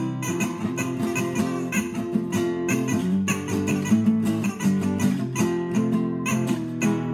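Acoustic guitar picked in a fast chicken pickin' country style, a quick run of short single notes.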